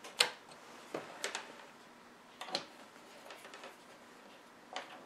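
A handful of sharp, separate clicks, the loudest just after the start, as the Heathkit MM-1 meter's rotary function switch is turned to DC minus and it is handled on the bench.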